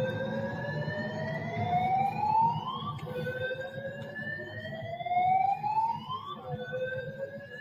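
Building fire alarm sounding its evacuation tone: a whoop that rises slowly in pitch over about three seconds, drops back and rises again. There are two full sweeps, and a third begins near the end.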